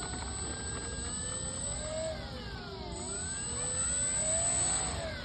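Remote-control model Cessna airplane's motor whining as it flies, its pitch sliding down to a low about three seconds in, climbing again and dropping once more near the end as it passes and changes speed.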